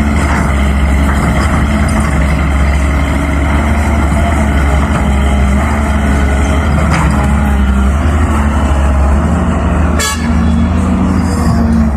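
Heavy diesel engine running steadily with a deep hum, and a sharp knock about ten seconds in.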